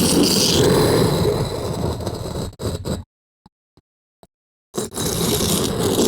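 Stone-slide sound effect: a heavy stone block grinding and dragging across stone, which tails off about three seconds in. After a dead-silent gap broken by a few faint ticks, a second stone scrape starts and runs on.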